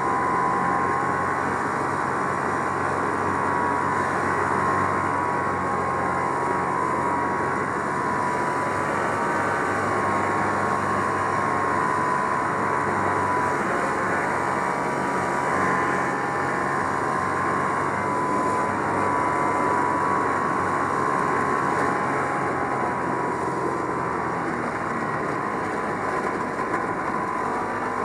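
1969 Polaris Mustang snowmobile's 372 cc JLO two-stroke engine running steadily under way at an even cruising speed, with only slight rises and falls in pitch.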